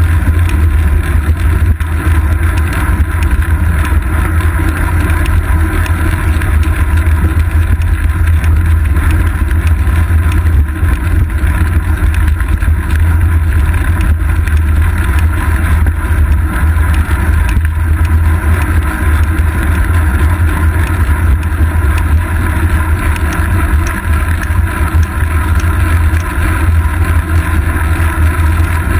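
Steady, loud, deep rumble of wind and road vibration picked up by a GoPro Hero 2 mounted on a bicycle's seat post while the bike rolls along a paved road.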